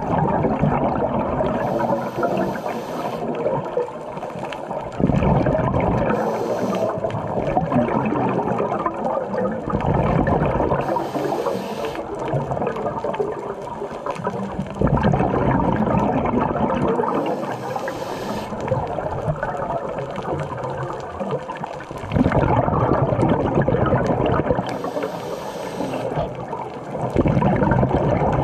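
Scuba diver breathing through a regulator underwater: a short hissing inhale, then a long rush of exhaled bubbles, repeating about every five to seven seconds, five breaths in all.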